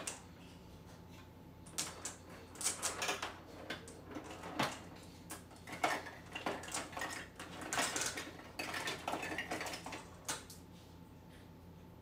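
Plastic marble run pieces clattering in a plastic storage bin as a hand rummages through them: irregular runs of clicks and knocks starting about two seconds in and stopping shortly before the end.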